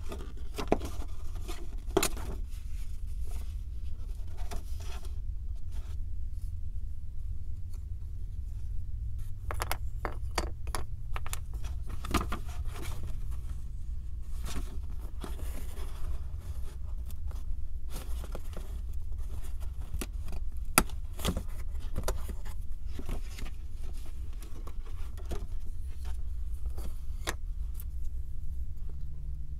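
Irregular small clicks, taps and scrapes of 3D puzzle pieces being handled and fitted together, over a steady low hum.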